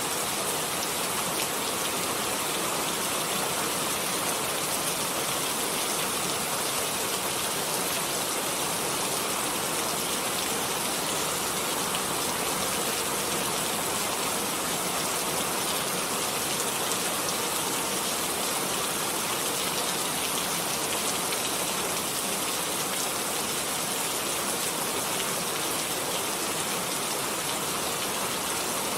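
Steady rain falling on a surface, a continuous even hiss of many drops without pauses or thunder.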